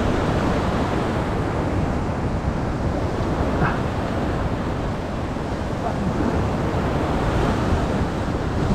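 Ocean swell washing and breaking against a rock ledge, with wind buffeting the microphone.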